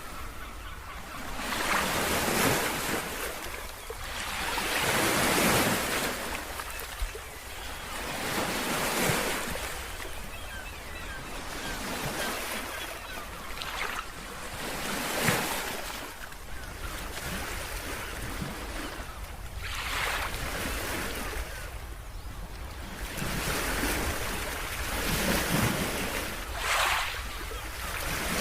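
Ocean surf: waves breaking and washing back, the noise swelling and fading every three to four seconds over a steady low rumble.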